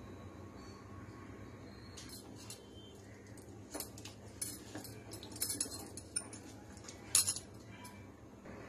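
A red spatula stirring thick paneer curry in a non-stick pan, with scattered clinks and knocks against the pan, the loudest a little before the end, over a steady low hum.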